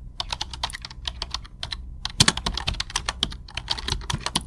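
Rapid, irregular clicking and tapping, several clicks a second, with a brief pause near the middle and the sharpest clicks just after it.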